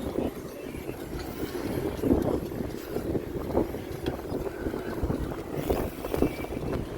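Bicycle ridden over rough ground: uneven rumble with irregular knocks and rattles, and wind on the microphone.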